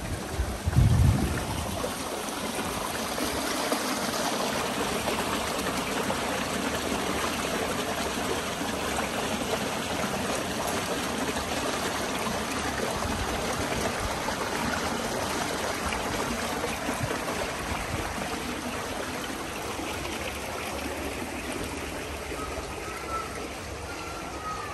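Water rushing steadily along a narrow stone-lined channel beside the street, an even splashing flow. A brief low bump about a second in.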